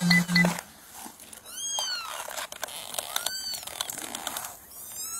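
Two short electronic beeps right at the start. Then a newborn kitten mews three times, each a high, thin cry that rises and falls.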